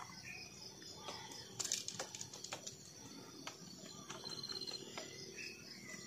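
Faint outdoor ambience of insects humming steadily, with a short high pulsing trill twice near the end and a few small bird chirps. Scattered light clicks and rustles come from gear being handled.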